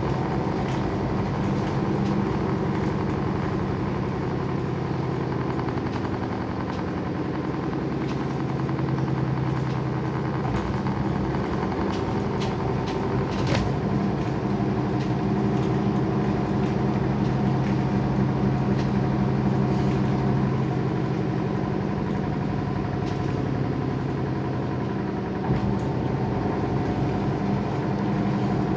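Washing machine running: a steady motor hum made of several pitched tones, growing stronger about a third of the way in, with scattered light clicks and knocks.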